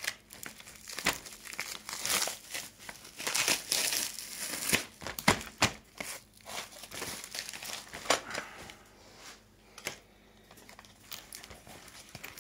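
Clear plastic wrap crinkling and tearing as it is snipped and peeled off a cardboard box, with sharp irregular crackles; it thins out and grows quieter about eight seconds in.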